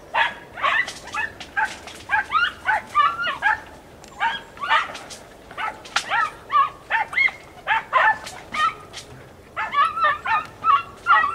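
Andalusian podencos giving tongue: rapid, high-pitched yelping from several dogs at once, overlapping, with a short lull about nine seconds in. It is the hunting cry of hounds pushing a rabbit through thick cane cover.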